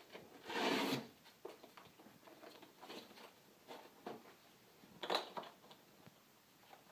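Hook-and-loop straps on a rigid plastic TLSO back brace being pulled through and fastened. A rasping rip about half a second long ends about a second in, and a shorter one comes about five seconds in, with soft rustling and small clicks of strap and plastic between them.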